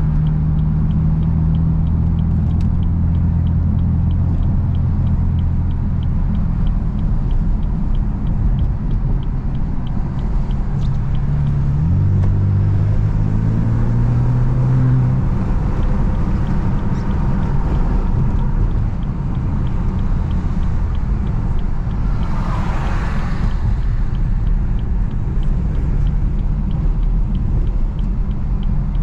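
BMW F80 M3's twin-turbo straight-six, fitted with a single mid pipe and stock exhaust, heard from inside the cabin at highway speed as a steady low drone. Its pitch rises for a few seconds about midway, then the engine note sinks under even tyre and road noise. A short whoosh passes about two-thirds of the way through.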